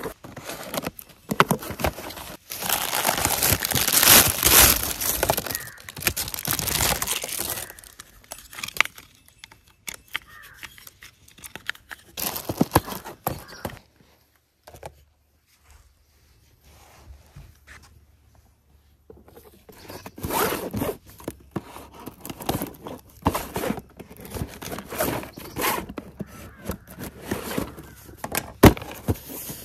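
Scissors cutting the packing tape on cardboard toy boxes, with the cardboard being torn and scraped open in scratchy bursts. A quiet stretch of several seconds falls in the middle.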